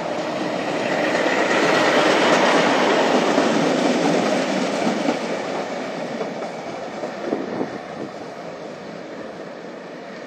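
Vintage yellow electric coast tram, a motor car with a trailer, passing close by on its rails. The rumble of wheels on track rises to a peak about two seconds in, then fades as the tram moves away, with a few clicks near the end.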